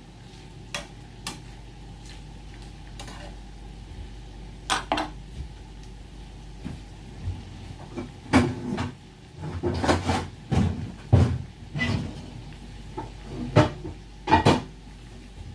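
Kitchen clatter: scattered knocks and clinks of pots, dishes and utensils, a few in the first half, then coming thick and fast in the second half.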